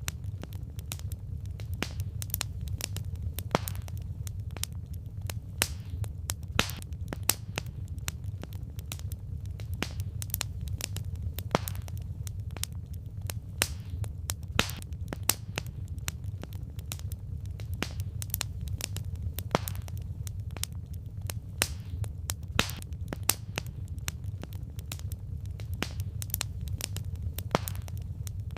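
Burning firewood crackling, with irregular sharp pops and snaps over a steady low rumble.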